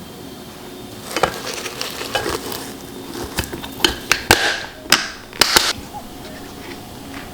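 Kitchen clatter: a run of sharp knocks and clinks of utensils against dishes or pans, starting about a second in and stopping about two seconds before the end.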